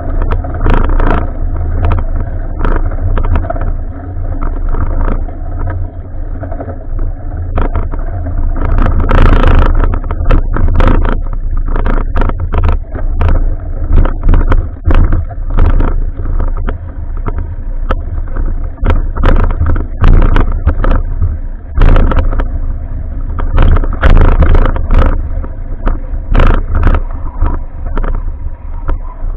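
Wind buffeting the microphone of an action camera on a moving bicycle, a constant low rumble, with frequent sharp rattles and knocks from bumps in the road.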